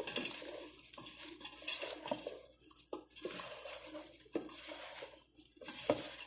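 Potato wedges coated in olive oil and spices being tossed by hand in a stainless steel bowl: irregular scraping and small knocks of the wedges against the metal, with short pauses about halfway and near the end.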